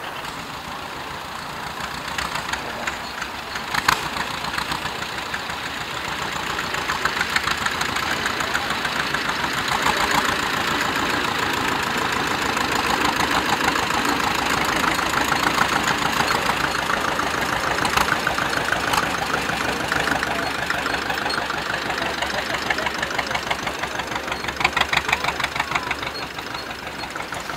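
Zetor 25 A tractor's two-cylinder diesel engine running at low speed as the tractor drives past, with a fast, even putter that grows louder as it comes near and eases off toward the end. A sharp click about four seconds in.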